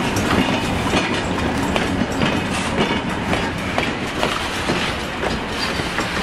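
Passenger coaches rolling past at close range, their steel wheels clacking irregularly over the rail joints over a steady rumble.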